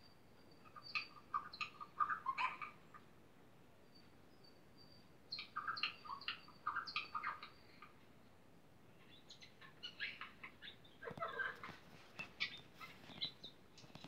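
Small bird chirping and twittering in three bouts of a couple of seconds each, with quiet pauses between.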